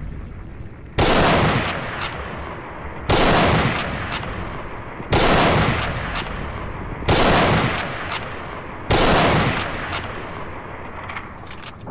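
Mosin-Nagant M38 carbine, a bolt-action rifle in 7.62×54mmR, fired five times about two seconds apart, each shot trailing off in a long echo.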